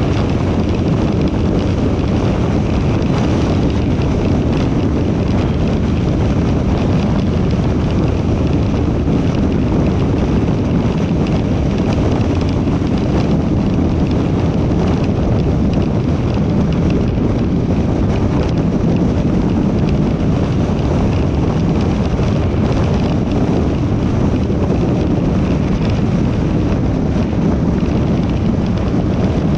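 Steady tyre and wind noise of a car driving at speed on a highway.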